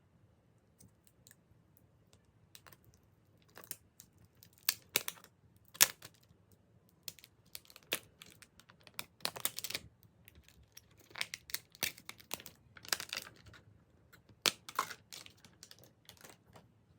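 Hands handling a new smartphone and its packaging: irregular taps, clicks and short rustling or peeling noises, starting a few seconds in and stopping shortly before the end.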